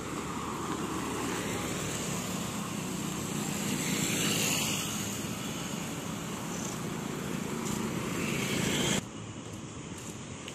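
Road traffic on the street beside the footpath, a steady rumble that swells about four seconds in as a vehicle goes by, then drops suddenly near the end.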